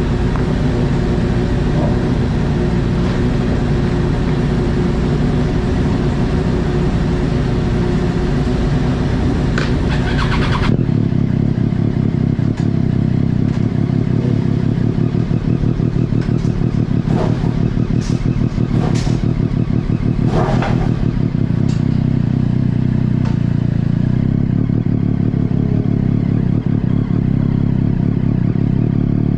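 Sport motorcycle engine idling, heard from close behind the rider, with a few short sharp noises in the middle; near the end the bike pulls away.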